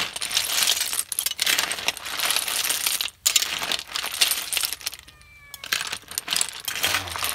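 Sikad-sikad sea snail shells clattering against each other and an aluminium wok as a metal spoon stirs them through with malunggay leaves: a dense, continuous clinking rattle. It breaks off briefly about three seconds in and again for half a second around five seconds.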